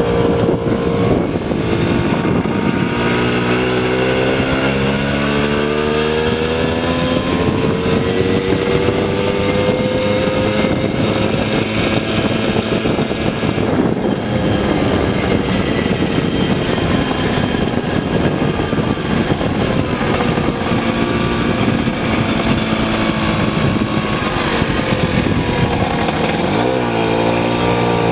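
1980 Puch Maxi moped's small two-stroke single-cylinder engine running under way. Its pitch climbs a few seconds in as it picks up speed, then holds roughly steady. Near the end it drops sharply and comes back up.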